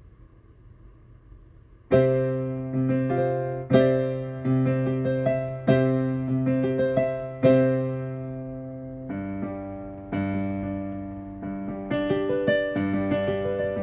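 AODSK S-200 88-key weighted digital piano played through its own built-in speakers. After about two seconds of quiet, a slow series of held chords and notes begins, each struck and fading, and the playing moves to lower chords about nine seconds in.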